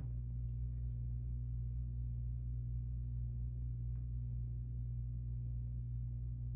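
Feature Comforts FT30-3D table fan switched off, giving a steady low hum as its blades coast down.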